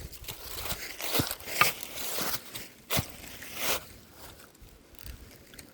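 Irregular rustling, crunches and sharp clicks of a hiker moving and handling his gear, with a few louder knocks, the loudest about three seconds in.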